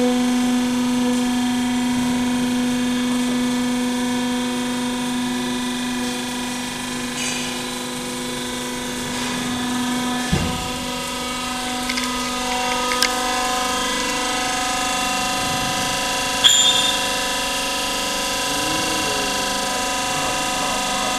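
Vertical waste baler running, its hydraulic pump motor giving a steady hum. About halfway through there is a sharp thump, then a few clicks and a metallic clank.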